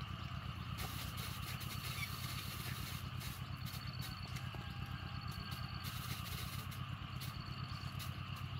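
A small engine idling steadily off-picture with a fast, even low throb.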